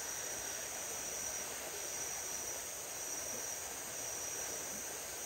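Steady, high-pitched chorus of insects calling at dusk, a continuous buzz with no breaks. It is the evening insect call that is taken as the sign that it is six o'clock.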